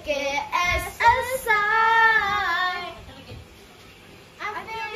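A child singing: a few quick phrases, then one long held note about one and a half seconds in that falls away at its end, a short pause, and the singing starts again near the end.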